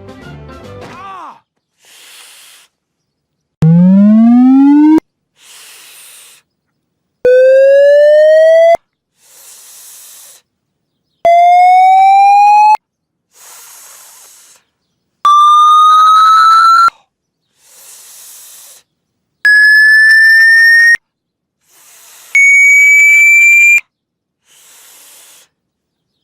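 A cartoon man's pained hiss through the teeth, each followed by a loud drawn-out 'aaah' cry of pain edited to step higher every time, like a hearing-test tone. Over six repeats it climbs from a low groan to a shrill whistle-like tone. Music fades out in the first second.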